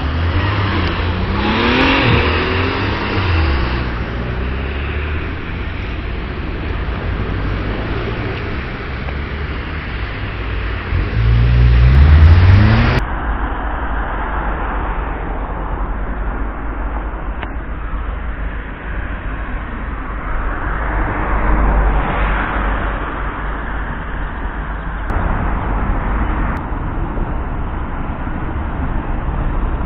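A road vehicle's engine pulling away and accelerating twice, its pitch rising each time, the second time the loudest, about twelve seconds in. After a sudden cut, a steady low rumble of street noise, swelling as traffic passes.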